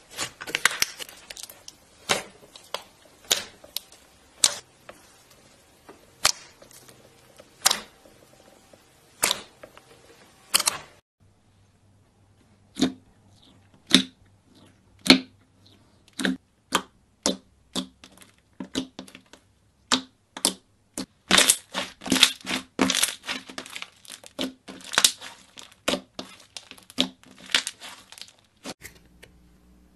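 Slime being squeezed, poked and pressed by fingers, making sharp clicking and popping sounds. About one pop a second at first; after a brief pause near the middle, the pops come faster and crowd together in the later part.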